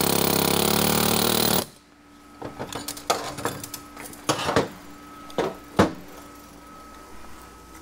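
Pneumatic air hammer running in one loud continuous burst, then cutting off suddenly about a second and a half in, as it is used to drive apart heat-welded parts of a burnt-up 4L80E automatic transmission. Several sharp metal knocks and clanks of the parts follow.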